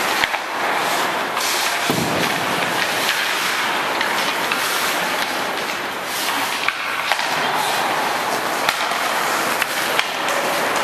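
Ice skates scraping and carving on rink ice, with occasional sharp clacks of hockey sticks on the puck and ice.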